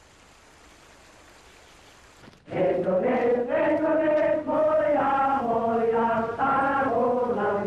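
Faint hiss, then about two and a half seconds in voices begin chanting together in long held notes that step up and down in pitch.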